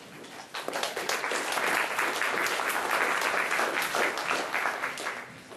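Audience applause: many people clapping, starting about half a second in and fading out near the end.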